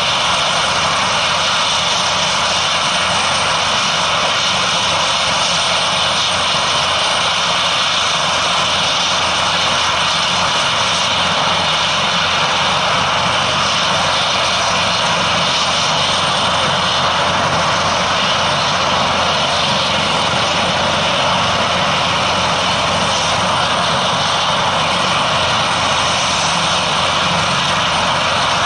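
Airbus H225M Super Cougar helicopter running on the ground with its rotors turning: a steady, loud whine from its twin Makila 2A1 turboshaft engines over the noise of the rotors.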